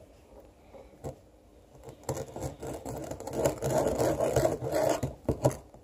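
Spoon stirring and scraping a bowl of glue and sand as Tide laundry detergent is mixed in to activate the slime, starting about two seconds in, with a single knock about a second in.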